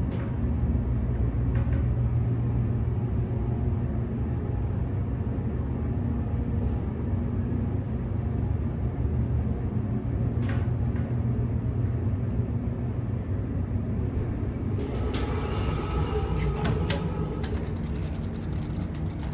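Schindler/MEI hydraulic elevator in travel: a steady low hum from the car and its hydraulic drive, with a run of clicks and rattles starting about three-quarters of the way through.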